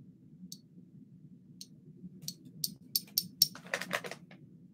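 Small brass cigar scissors being opened and closed by hand: a series of light, sharp metal clicks, about six spread out, then a quick cluster of clicks and a short rasp of the blades near the end. A faint steady low hum runs underneath.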